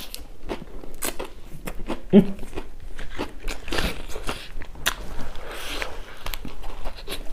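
Close-miked crunching and chewing as a mouthful of singju salad and raw green leaves is bitten and eaten, with many short crisp crackles and one brief mouth sound about two seconds in.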